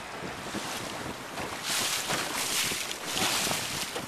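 A small boat under way on a canal: a rushing wash of water against the hull and wind on the microphone, swelling twice into louder surges as the water gets rough.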